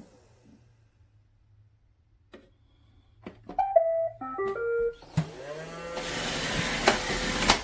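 Roomba robot vacuum playing its short tune of stepped electronic beeps after a few clicks. About five seconds in its motors start up with a rising whine and run steadily.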